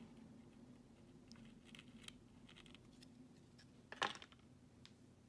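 Near silence with faint handling noise of small 3D-printed plastic parts being fingered, with a few soft ticks and one brief sharper plastic click about four seconds in.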